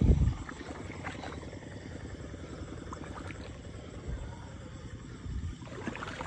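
Low rumbling handling and wading noise in shallow grassy water: a heavy thump at the start, a softer thump about five seconds in, and faint clicks in between.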